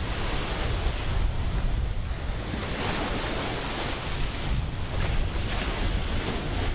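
Wind buffeting the microphone over steady rushing water.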